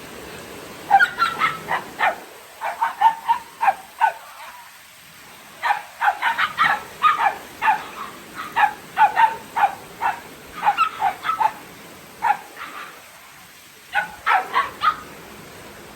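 Dogs playing, giving many short, high barks and yips in rapid runs, with brief pauses between the runs.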